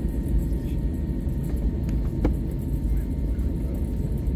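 Airbus A320 cabin noise heard from a window seat: a steady low rumble of the jet engines and the airliner rolling on the runway, with a single short click about two seconds in.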